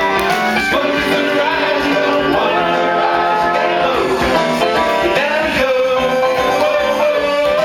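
Music: a song with a sung melody over instrumental backing.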